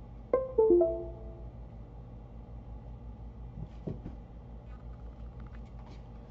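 A computer's USB device chime of three quick notes, each stepping down in pitch, as the USB streaming microphone is connected. It is followed about four seconds in by a soft knock.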